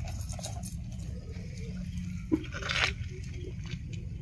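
Wire tongs picking a millipede out of dry leaf litter: soft rustling of dry leaves, a sharp click about halfway through and a brief scrape right after, over a steady low rumble.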